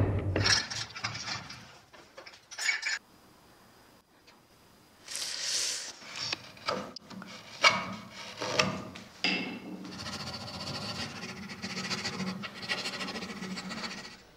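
Hand carving tools working wood: a series of separate scraping cuts from a steel gouge, then a few seconds of steadier rasping on the wood near the end.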